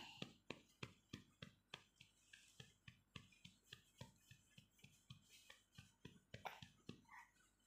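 Faint light taps or clicks, about three or four a second, unevenly spaced, over near silence.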